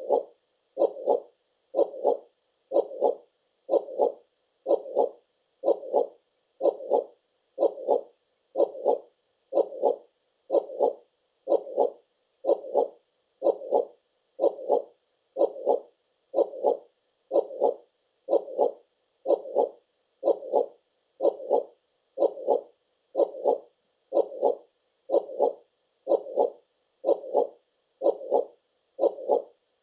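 Heartbeat sound: a steady lub-dub double beat repeating about once a second, around 64 beats a minute, with no change in pace.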